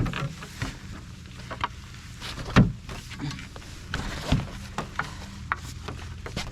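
Scattered knocks and clicks of long gear being handled and strapped along a canoe, with louder knocks about two and a half and four seconds in.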